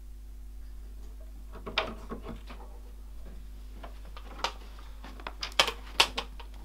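A wooden door being opened, its handle and latch clicking and rattling, with a few sharp knocks, the loudest just before the door swings open. A steady low hum runs underneath.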